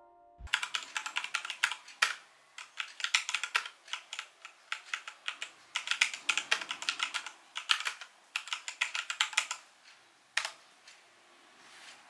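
Fast typing on an E-YOOSO Z11 60% mechanical keyboard with Outemu switches: crisp key clacks in quick clusters with short gaps. The typing stops about two seconds before the end, with one last keystroke about a second after that.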